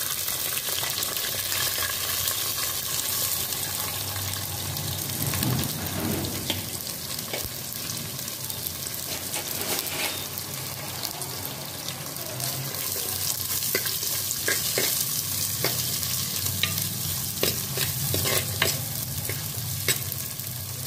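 Sliced shallots sizzling in hot oil in a clay pot, a steady frying hiss. A spatula stirs them, with short clicks and scrapes against the pot that come more often in the second half.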